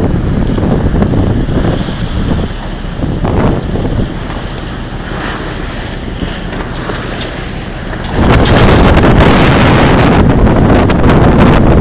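Wind buffeting the microphone on the deck of a moving sailboat, a steady rushing noise that gets much louder about eight seconds in.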